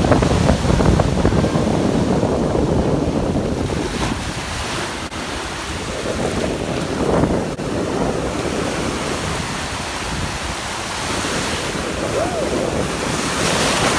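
Ocean surf breaking and washing up over the sand, with wind rumbling on the microphone.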